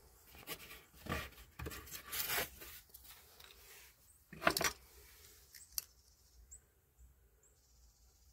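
Hand rummaging in a metal glove compartment: rustling of plastic and paper and small knocks of objects being moved, with a louder rustle about four and a half seconds in and a sharp click shortly after.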